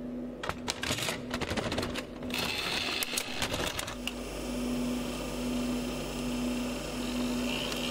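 Videocassette recorder's tape mechanism taking in a cassette: a run of clicks and clatter, a brief whir about two seconds in, then the motor running with a low hum that pulses about once a second.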